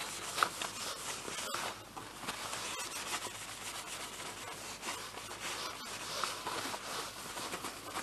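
A cloth rubbing back and forth over the painted side cover of a Motobécane AV89 moped, cleaning it with WD-40: a steady scrubbing hiss with a few small ticks.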